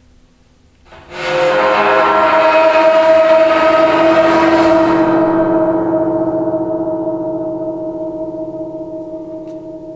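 Resonator of a Cristal euphonic instrument sounding as an effect: about a second in, a loud, dense ringing of many tones swells up quickly. Its high overtones die away after a few seconds while a few lower tones keep ringing and slowly fade.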